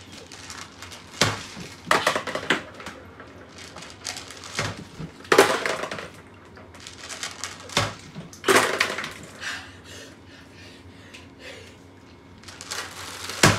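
Water sloshing and splashing in a plastic tub as a person bobs for marbles with her mouth, with irregular knocks and clinks of marbles dropping into a bowl.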